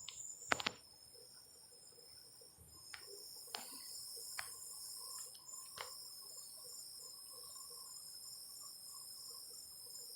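Crickets chirping steadily in a continuous high-pitched trill. A few sharp clicks are heard over it in the first half, the loudest about half a second in.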